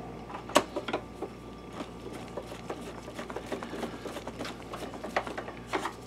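Hand screwdriver driving a screw into the plastic base of an Optoma projector: a fast, irregular run of small clicks and scrapes, with a louder click about half a second in and another group of clicks near the end.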